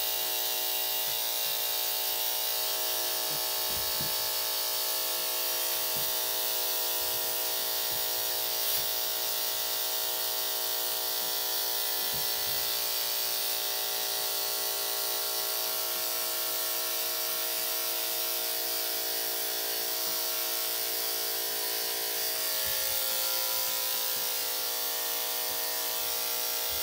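Corded electric dog-grooming clippers running with a steady buzz while trimming the fur on a small dog's front paw.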